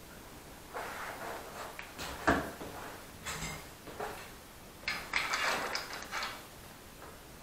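Workbench handling sounds as a clamp is set on a wooden block: irregular knocks and rustles, a sharp knock a little over two seconds in, then a run of scraping and rustling near the end.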